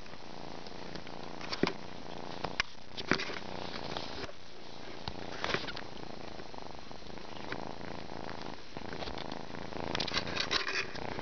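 Kitten purring steadily, with a few short clicks or rustles scattered through it and a cluster of them near the end.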